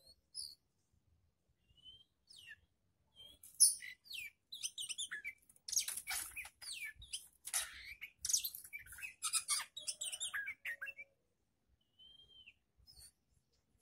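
A songbird singing: a few soft whistles, then about seven seconds of rapid, varied chirps, trills and whistled notes, with a couple of soft slurred whistles near the end.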